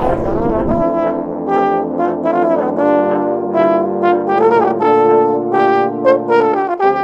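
Several overdubbed French horn parts playing together: held low notes under a moving higher melody. They come in about a second in, as a white-noise sweep fades away.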